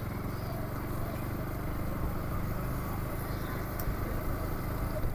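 Motorcycle riding along at a steady speed: an even, low rumble of engine and road/wind noise with no sudden changes.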